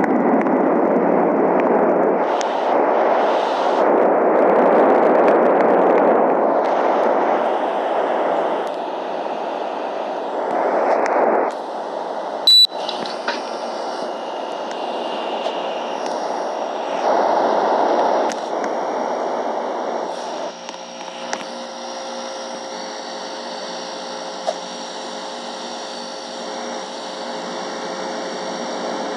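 Air conditioner running: a steady rushing of air that swells and eases, with a sharp click about twelve seconds in. From about twenty seconds in, a steady hum with several tones joins it.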